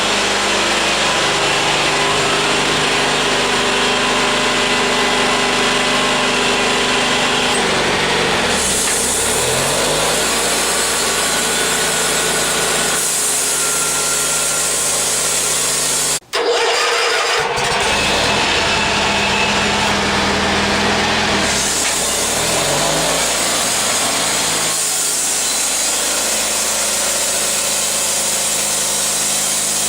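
Homemade band sawmill driven by a 15 HP engine, running steadily while the band blade cuts through a white ash log. The engine's pitch dips and recovers twice, and the sound cuts out for a moment about halfway through.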